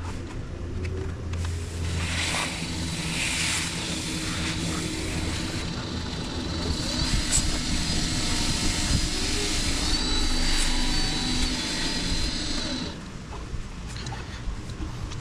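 Wood lathe running with a dye-soaked rag pressed against a live-oak spinning top as it turns. A steady motor hum sits under a hiss of cloth rubbing on the wood, which builds over several seconds and drops away sharply near the end.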